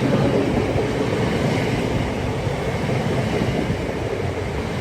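Class 365 Networker electric multiple unit rolling into the platform, a steady rumble of wheels and running gear with a hiss over it.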